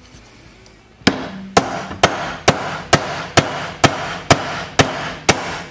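Hammer blows on a steel pin punch held against the steering-wheel hub of a 1958 Wheel Horse RJ58 clamped in a vise. There are ten sharp, ringing strikes at about two a second, starting about a second in. The blows are meant to drive out what is stuck in the hub, which does not move.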